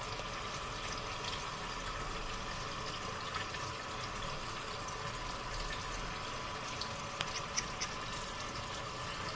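Kitchen tap running steadily into a stainless-steel sink, with a few faint clicks near the end.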